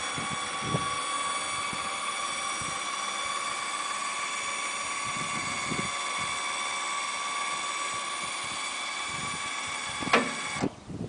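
Powered wheelchair-lift platform on a glider-launch winch trailer being lowered, its drive motor giving a steady high whine. About ten seconds in there is a clunk and the whine cuts off suddenly as the platform comes to rest.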